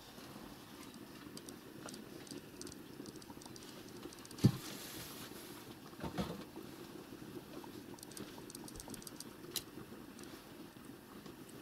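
Faint, scattered clicking and ticking of a ginger cat licking and grooming a white kitten, with a dull thump about four and a half seconds in and a smaller knock about six seconds in.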